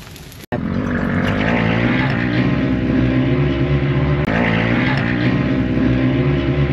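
A vehicle engine running steadily, starting abruptly about half a second in.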